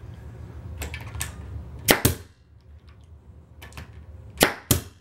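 Pneumatic finish nailer firing finishing nails into a beadboard wainscoting panel: one sharp crack about two seconds in and two quick ones near the end, with a few light clicks before the first.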